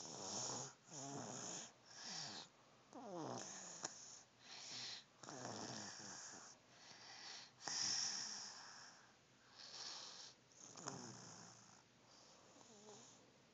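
Snoring: a run of breaths about once a second, several with a whistling tone that slides down in pitch.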